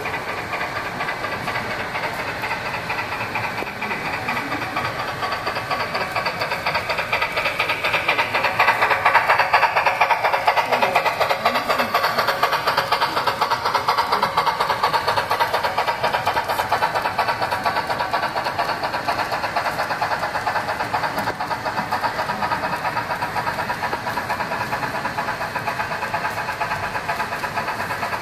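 Model circus train running on the layout track: a steady, rapid rattle of wheels on rails, growing louder about ten seconds in as the cars come out of the tunnel, then easing off a little.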